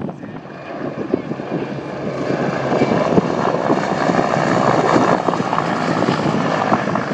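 Mil Mi-24 Hind helicopter's twin turboshaft engines and main rotor on a low pass. The noise builds from about a second in, is loudest around two-thirds of the way through, and eases slightly near the end.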